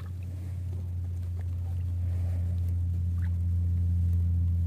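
Boat engine running with a steady low hum that grows gradually louder, with a few faint clicks over it.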